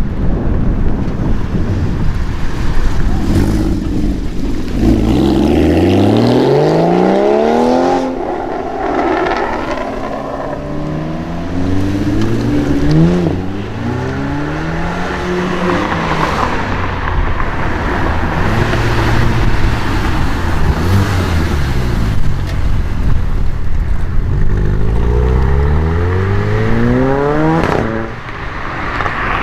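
Several sports cars accelerating hard past, one after another, each exhaust note climbing in pitch as it revs, with breaks where the pitch drops back. The strongest runs come about five seconds in and again near the end.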